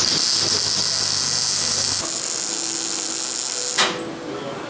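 Electric arc welding on a cast-iron exhaust manifold, most likely welding a nut onto a seized, broken-off bolt to get it out. The crackling hiss of the arc starts suddenly, changes tone about halfway, and cuts off abruptly after about four seconds.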